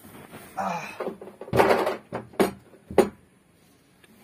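Bumps and scraping of a person moving about inside a plastic water tank, its hollow shell knocking and echoing, with two sharp knocks in the second half.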